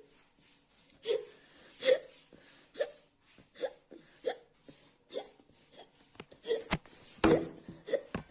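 A woman hiccupping over and over, short sharp hiccups about one every three-quarters of a second, the loudest near the end. The hiccups keep coming and won't stop.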